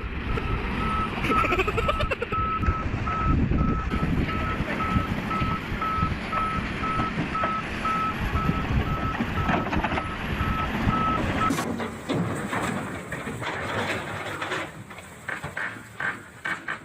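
A heavy vehicle's reversing alarm beeping at an even pace over a diesel engine's rumble; about eleven seconds in the beeping stops and gives way to irregular knocks and clatter.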